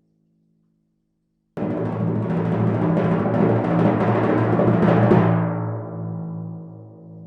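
Timpani roll: it starts abruptly after a second and a half of silence, grows a little louder, then stops about five seconds in and the drum rings on, fading.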